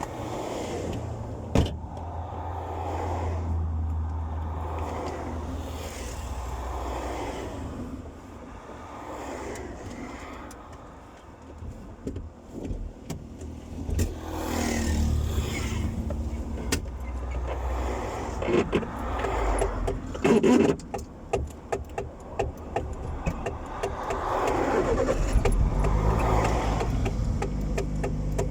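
Car engine running and road noise heard from inside the cabin while driving, with a few swells in engine sound and a run of light clicks and rattles in the second half.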